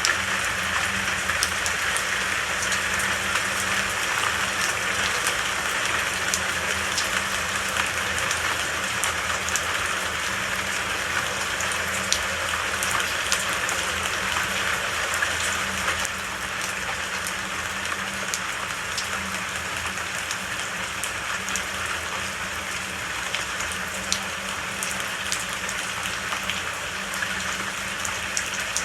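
Steady rain falling, an even hiss with scattered individual drops ticking through it; it eases slightly a little past halfway.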